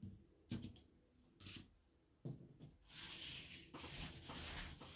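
Faint rustling and a few light knocks of craft materials being handled and moved about, ending in a longer rustle.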